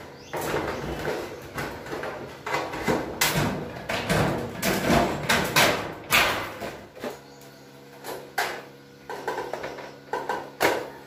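Corrugated galvanized iron roofing sheets being lifted, shifted and laid on a concrete floor: irregular rattles, scrapes and clanks of thin sheet metal. A steady low hum comes in about seven seconds in, under a few sparser clicks.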